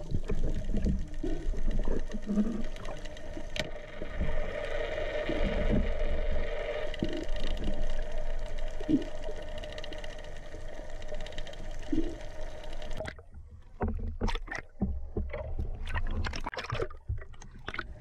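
Boat motor running steadily with a low rumble and water noise. About 13 seconds in, the sound cuts to a scattering of sharp clicks.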